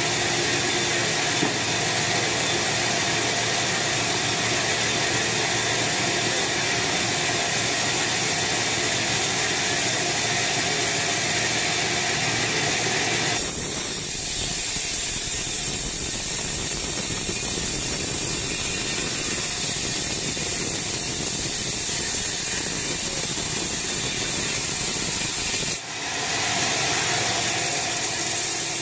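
HATTA band sawmill running, its band blade sawing through an old teak log: a steady, loud machine whir with a hiss over it. The sound shifts about halfway through and dips briefly near the end.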